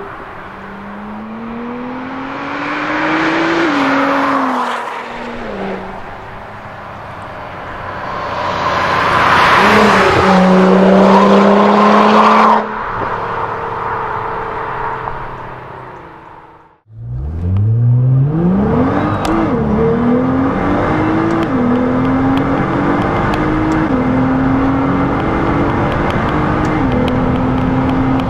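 Nissan GT-R's twin-turbo V6 through a Remus cat-back exhaust, accelerating hard, its pitch rising and then falling as the car goes past, twice. After a sudden cut and a brief dip to quiet, a full-throttle run climbs through the gears, the pitch rising and dropping back at each of several upshifts.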